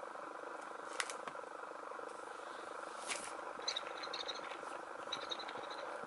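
Squeaker built into a children's cardboard picture book being pressed, giving short high squeaks in two quick runs, about midway and again near the end. A sharp click from handling the book comes about a second in, over a steady background hum.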